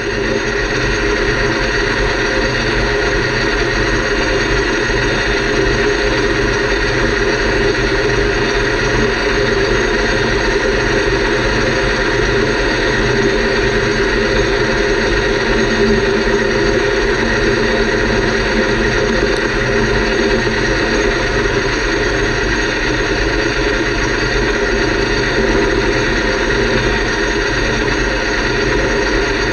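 Metal lathe running steadily through a final cut on a gear blank, its motor and gear train giving a constant hum with several fixed tones.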